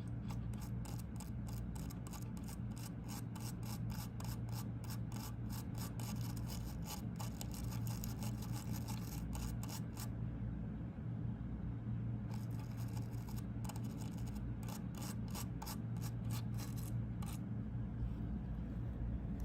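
Rapid, repeated rubbing strokes in two long runs, with a short pause between them, over a steady low hum.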